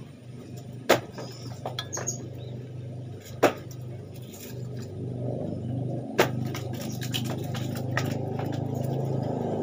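A knife knocking and scraping on a wooden chopping block while papuyu (climbing perch) are cleaned: three sharp knocks about two and a half seconds apart, with smaller clicks between them. A motor hums steadily underneath and grows louder in the second half.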